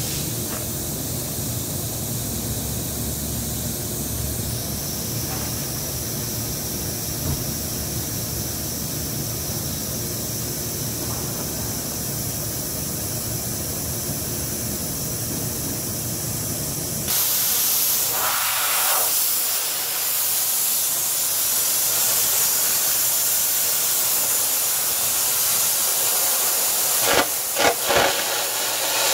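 Steady machine hum, then about two-thirds of the way through a loud, steady hiss of compressed air starts from an air carbon arc gouging torch. Near the end the carbon arc strikes with a few sharp crackles as it begins cutting into the metal.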